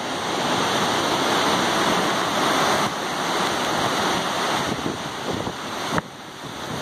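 Hurricane wind gusting, rushing through the trees and buffeting the microphone. The gust builds over the first second, holds strong for a couple of seconds, then eases, and a sharp click comes about six seconds in.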